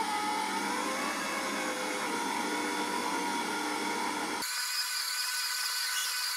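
Silvercrest SKM 650 A1 650 W stand mixer motor running steadily at speed 2, its dough hook turning through flour for a pizza dough. About four seconds in, the sound changes abruptly and loses its low end.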